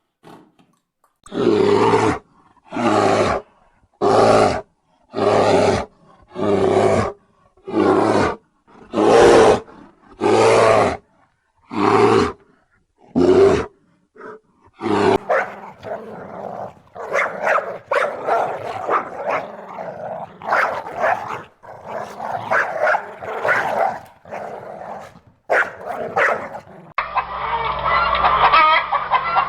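A dog barking in an even rhythm, about once a second for some fourteen seconds, then a stretch of irregular, rougher animal sounds.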